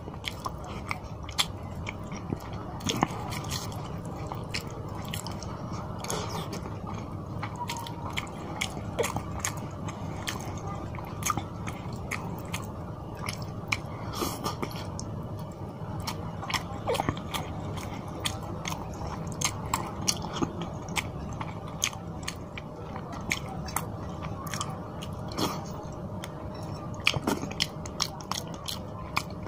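Close-miked chewing of fish curry and rice eaten by hand, with frequent short wet mouth clicks and lip smacks.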